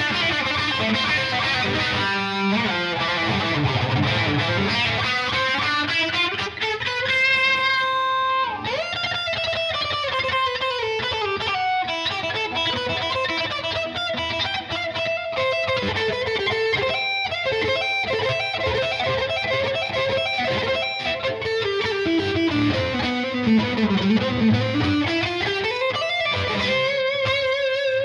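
Lavish XG-1G electric guitar played through a distorted tone: a fast lead line with a held note near the middle and two long swoops in pitch that dip down and climb back up.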